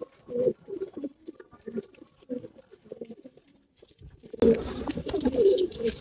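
Pigeons cooing, a run of short low coos one after another. A steady rushing noise comes in about four and a half seconds in.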